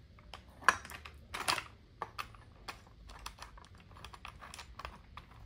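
A plastic motorcycle handguard and its mounting parts being handled and fitted to the handlebar: a run of small irregular clicks and taps, the sharpest knocks in the first two seconds.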